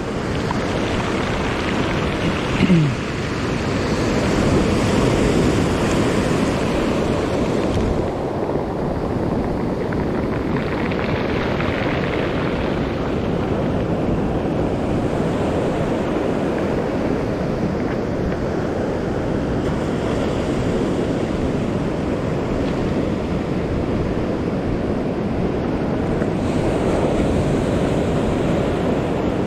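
Surf breaking on the shore: a steady wash of waves with wind rumbling on the microphone, swelling louder several times as waves break. A brief gliding sound stands out about three seconds in.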